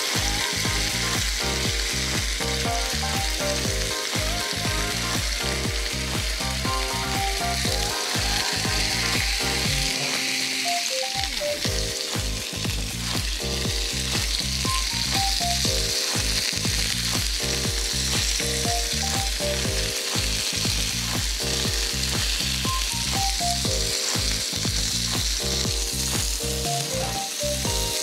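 Chicken breasts sizzling steadily in hot oil in a frying pan, with the scrape and tap of a spatula turning them, over background music with a steady beat.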